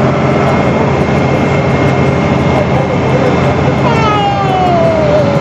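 Small harbour passenger ferry's engine running with a steady low hum under a dense rushing noise. A single long falling tone is heard about four seconds in.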